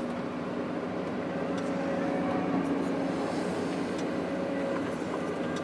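Heavy earthmoving machinery's diesel engine running steadily, a constant drone with a low hum.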